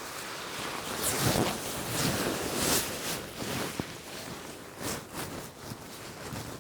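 Strong wind blowing in gusts, swelling loudest between about one and three seconds in.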